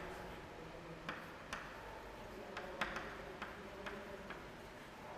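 Chalk tapping and scratching on a chalkboard while writing: faint, irregular light ticks, about two a second.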